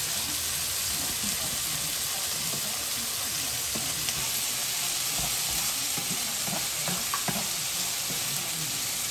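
Chicken and mushrooms sizzling steadily in an oiled frying pan, with a few light clicks of utensils being stirred.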